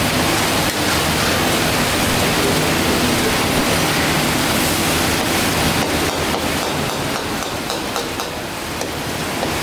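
Mutton karahi sizzling in a wok over a gas burner: a steady, even hiss.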